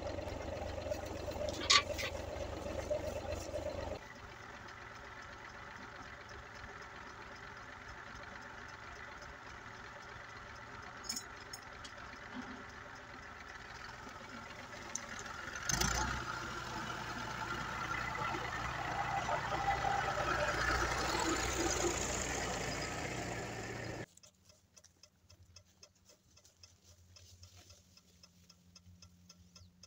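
Massey Ferguson tractor engine running, growing louder for several seconds past the middle and then stopping abruptly. After it, only faint regular ticking.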